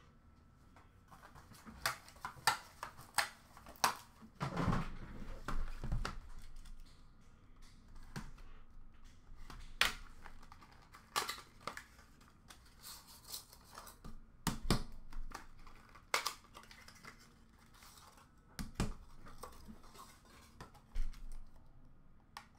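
A cardboard hockey card box being opened and its cards in hard plastic holders taken out: irregular clicks, taps and rustles of cardboard and plastic being handled.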